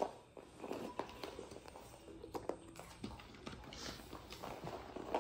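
Faint, scattered taps and clicks of jigsaw puzzle pieces being picked up, shuffled and set down on puzzle boards and a foam floor mat.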